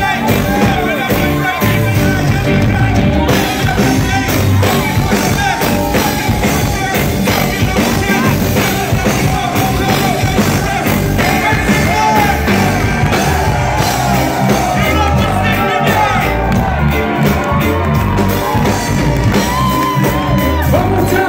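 Live rock band playing loud through the venue's sound system, with electric guitar, bass, keyboards, drums and a singing vocalist, heard from within the audience.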